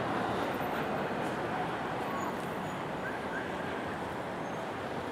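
Steady street background noise of a city avenue: a continuous hum of traffic with faint, brief distant sounds over it.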